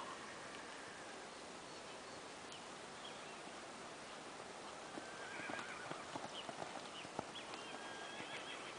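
Horse cantering on a sand arena: soft, muffled hoofbeats, with a few sharper knocks in the second half.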